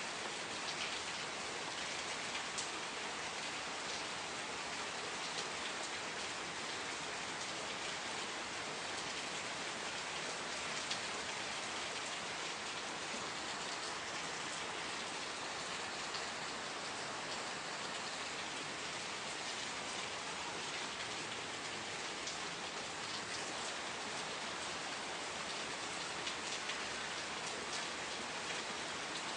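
Steady rain falling, a constant hiss dotted with fine pattering drops.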